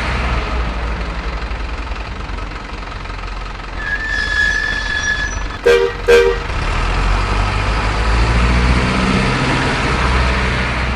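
Toy RC locomotive running with a steady rumble, sounding two short horn toots about halfway through, just after a thin high tone lasting about a second.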